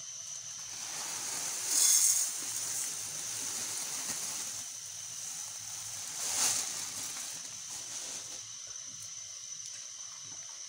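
Granulated sugar pouring from a plastic bag into an aluminium karahi, a steady rushing hiss with two louder surges, about two seconds and six seconds in.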